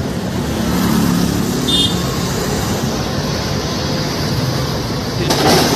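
Road traffic noise at night, a steady rumble of vehicle engines and tyres. A brief high tone sounds about two seconds in, and a short louder rush of noise comes near the end.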